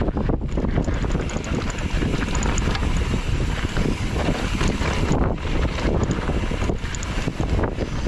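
Wind buffeting the microphone of a camera on a moving mountain bike: a dense, steady rush heaviest in the low end, broken by scattered short knocks from riding over the trail.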